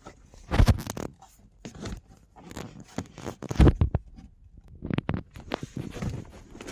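Plastic dashboard trim being pried and worked loose by hand: a run of clicks, snaps and scrapes of plastic against plastic, the loudest snap about three and a half seconds in.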